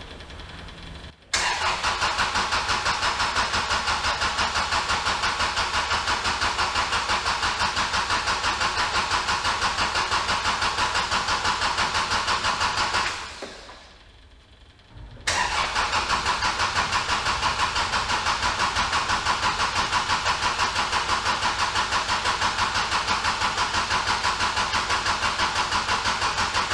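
Kubota L4701 tractor's diesel engine cranked on the starter twice, each time for about twelve seconds with an even, rapid pulsing, and not catching, with a short pause between the two tries. The owner believes air is in the fuel system because the new fuel filter was not filled with fuel first.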